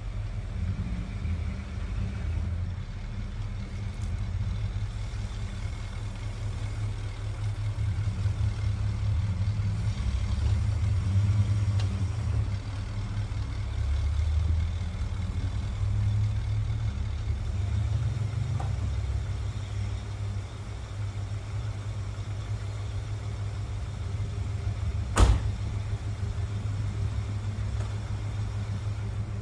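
Plymouth Volare engine running at a low idle while warming up after a cold start on its electric choke, as the car is moved slowly out and back in, with slight swells in the rumble. A single sharp knock about 25 seconds in.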